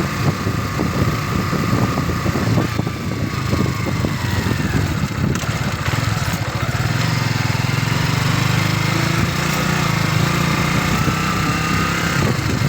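Kawasaki trail motorcycle's engine running while being ridden over a rough track, with choppy wind and bump noise. About halfway through the engine note steadies and grows stronger, then eases off near the end.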